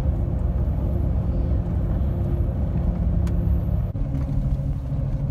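Road and engine noise inside a truck's cab at highway speed: a steady low rumble with a droning hum. About four seconds in there is a brief dip and the hum settles a little lower in pitch.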